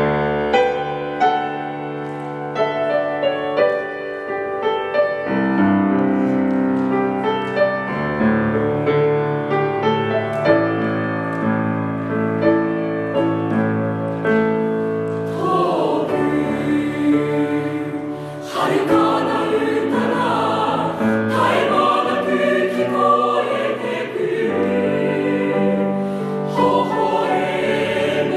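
Background choral music: a choir singing over held chords. It starts suddenly, and the wavering voices come to the fore about halfway through.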